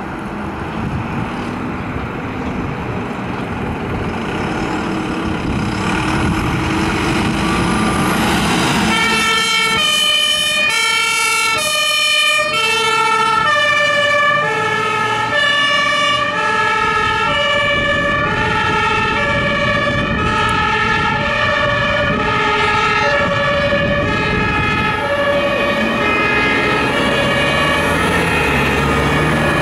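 Fire truck engine and road noise building, then, about nine seconds in, a German two-tone fire engine siren (Martinshorn) starts and keeps alternating evenly between a high and a low note over the truck's engine.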